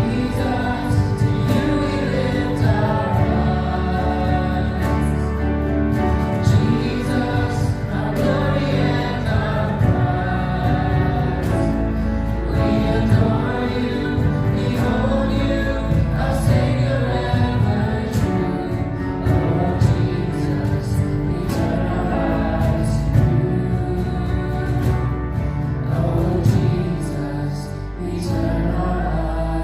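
Music with a choir singing over sustained chords.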